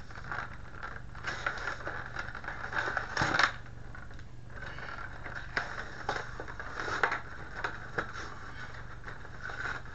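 Rigid clear plastic blister packaging of an action-figure box crackling, crunching and scraping as it is pried and torn open by hand, in irregular sharp crackles with one loudest crunch about three seconds in.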